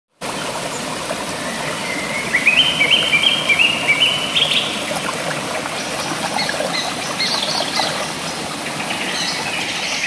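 Small rocky stream running and splashing steadily over stones, with a bird calling a quick run of short chirps between about two and four and a half seconds in, and a few more chirps later on.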